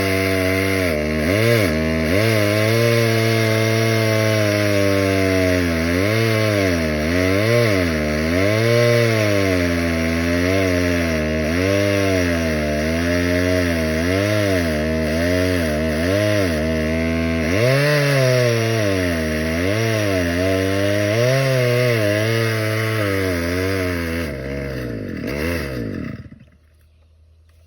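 Stihl 011 two-stroke chainsaw cutting firewood, its engine pitch repeatedly rising and dropping as it revs and bogs in the cut. The engine stops about 26 seconds in.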